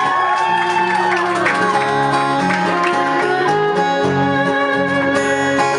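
Background music: an instrumental passage of a Filipino folk-style song, with guitar and sustained notes.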